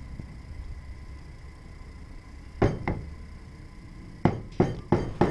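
Kitchen knife chopping garlic on a thick round wooden chopping board: two sharp chops about two and a half seconds in, then a steady run of chops about three a second near the end.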